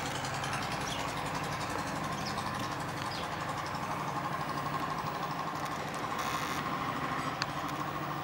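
A motor running steadily: a continuous low hum with a higher steady whine. A single sharp tick sounds near the end.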